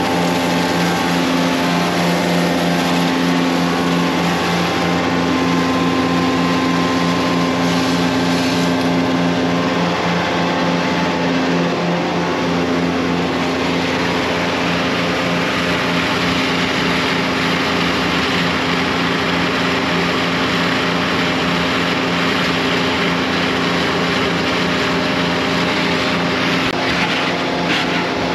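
Steady loud drone of a DAF combi jetting-and-vacuum tanker's engine and pumps running, with water hissing and splashing as a drain is jetted and a grease trap is sucked out; the rush of water grows louder about halfway through.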